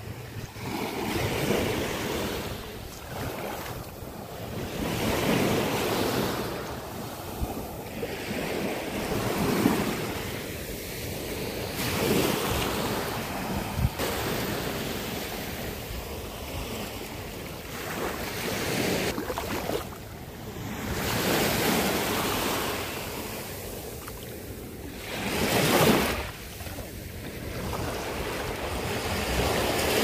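Small sea waves lapping and washing up a sandy beach, the wash swelling and fading every few seconds.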